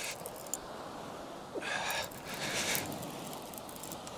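A man breathing hard in a rush between about one and a half and three seconds in, straining against a sea-fishing rod snagged on the rocky bottom. A steady hiss of wind and sea runs underneath.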